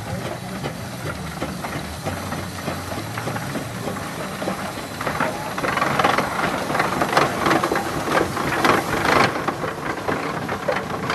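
Sawyer-Massey steam traction engine running as it drives past, its exhaust chuffing in a steady rhythm that grows louder about halfway through as it comes close.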